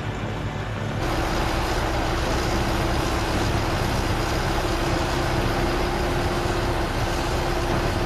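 Heavy machinery running steadily: the diesel engines of a self-propelled wood chipper and a tractor, as the chipper's high-tip bin unloads wood chips into the tractor's trailer. About a second in the sound shifts and a steady hum joins the engine noise.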